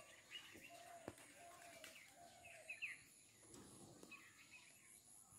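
Near silence: faint outdoor ambience with a few soft, short bird chirps and one faint click about a second in.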